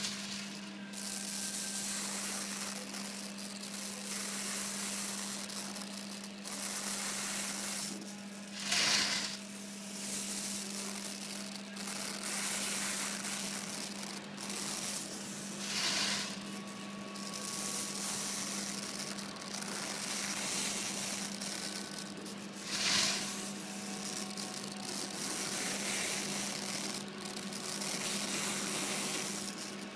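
Flame-polishing torch hissing steadily as it is worked along the edges of acrylic sheet, rising in brief louder rushes three times, about every seven seconds, over a steady low hum.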